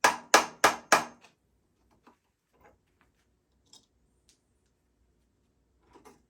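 Four sharp knocks in quick succession at the start, about three a second, like tool blows on the bike's parts, followed by a few faint scattered clicks and taps.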